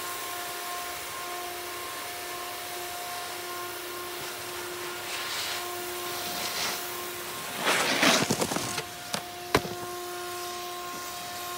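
A steady mechanical hum runs throughout, with a snowboard scraping over snow: short hisses around the middle, then a loud rough scrape about eight seconds in, and a sharp click soon after.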